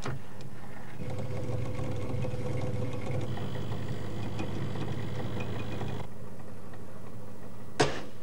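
Tensile testing machine's drive running steadily as it pulls a plastic test strip, starting with a click as the start button is pressed. There is a sharp snap near the end as the strip breaks.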